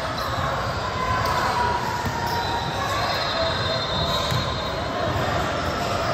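Echoing gym ambience: spectators' chatter and general hall noise, with a few thin, high squeaks in the middle.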